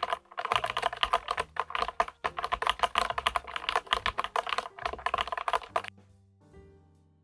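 Fast typing on a LEOPOLD FC660MBT mechanical keyboard with PBT keycaps: a quick run of key clicks that stops about six seconds in, leaving soft background music.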